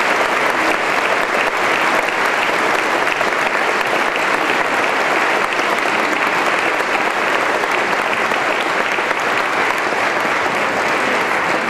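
Large audience applauding, a dense, steady clapping with no music under it.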